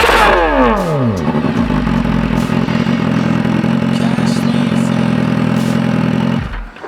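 BMW S1000RR inline-four motorcycle engine breathing through an aftermarket Hurricane sport exhaust: the revs fall away from a throttle blip in the first second, then it settles into a steady idle that stops abruptly near the end.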